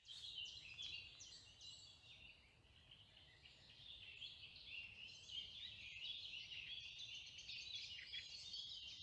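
Faint birdsong: many short, varied chirps and trills from several birds overlapping, with a faint low hiss beneath.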